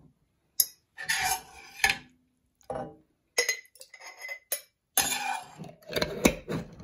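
A metal ladle clinking and scraping against a stainless steel pan and a glass jar as syrupy bitter orange peels are ladled into jars. It comes in several short separate runs of clatter with sharp clinks, the loudest near the start and again near the end.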